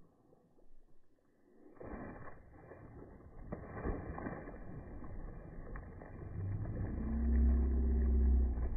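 Water splashing and thrashing as a hooked fish fights at the surface beside the boat, starting suddenly about two seconds in. A low droning hum builds and is loudest near the end.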